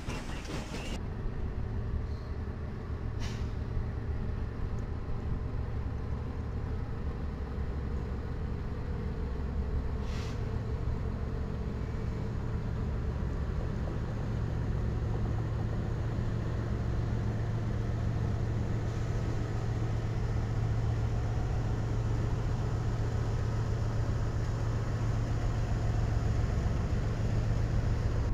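BNSF diesel-electric freight locomotives running with a steady low engine drone as a freight train rolls by, slowly growing louder toward the end. Two short sharp clicks sound, one a few seconds in and one about ten seconds in.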